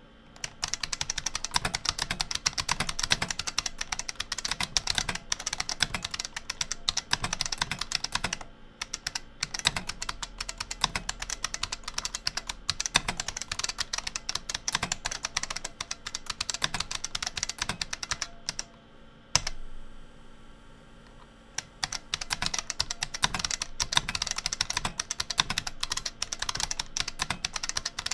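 Fast typing on the IBM 5155 Portable PC's capacitive buckling-spring keyboard: a dense stream of sharp clicks from the keys. There is a short break about a third of the way in, and one louder strike about two-thirds in, followed by a pause of about two seconds before the typing resumes.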